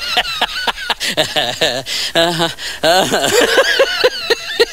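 A person laughing hard in many short, rapid bursts.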